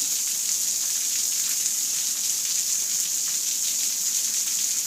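Steady rain falling: an even hiss with many fine drop ticks.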